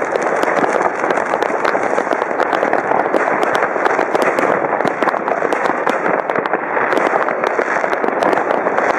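Many fireworks and firecrackers going off across a city at once, a continuous dense crackle of countless bangs running together with no pause.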